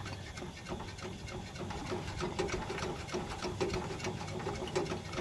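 Coleman 425 camp stove's fuel-tank pump being worked by hand: a quick, steady rhythm of plunger strokes pressurizing the naphtha tank.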